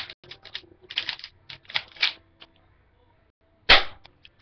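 Rapid clicking and rattling of a plastic airsoft gun and magazine being handled, then one sharp crack about three and a half seconds in.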